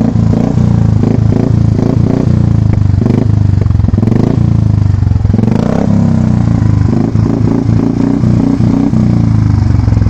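Royal Enfield Bullet 350's single-cylinder engine running on its stand through a free-flowing SC Project aftermarket exhaust, very loud and bassy. The throttle is blipped partway through, so the revs rise and fall before settling back.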